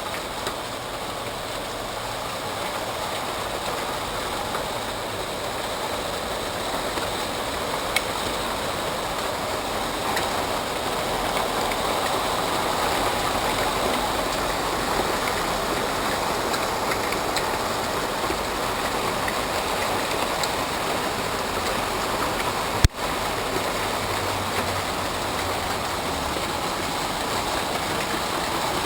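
Hail falling steadily: a dense, even hiss of hailstones striking, growing a little louder over the first dozen seconds as the stones get bigger. A single sharp click about 23 seconds in.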